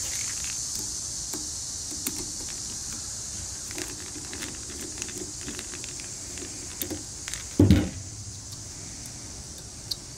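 Light clicks and taps of small metal parts and tools being handled while a motorcycle carburetor is taken apart, with one heavier knock about three-quarters of the way through.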